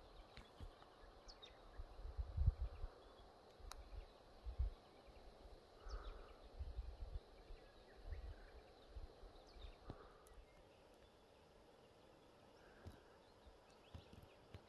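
Faint outdoor background with irregular low rumbles and bumps on the microphone, mostly in the first half, and a few faint short high chirps and clicks.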